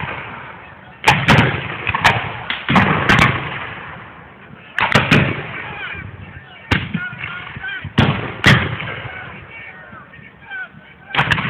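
Scattered black-powder gunfire firing blanks in a reenacted battle: about a dozen sharp shots at uneven intervals, some in quick pairs, each trailing off in a rolling echo.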